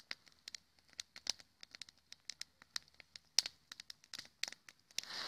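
Wood campfire crackling, with irregular sharp snaps and pops from the burning sticks. A short rush of hissing noise comes in near the end.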